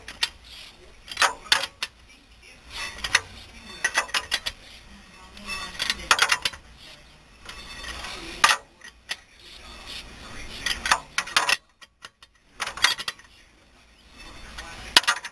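Steel lug wrench turning the lug nuts on a raised car wheel: irregular metallic clinks and clicks in clusters as the socket works on the nuts and knocks against the wheel. The nuts are being snugged in turn before the car is lowered for final tightening.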